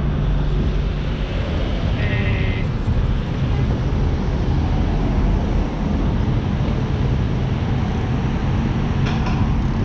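Wind buffeting a bike-mounted camera's microphone while riding, mixed with the steady noise of car traffic crossing close by. A brief high squeal about two seconds in.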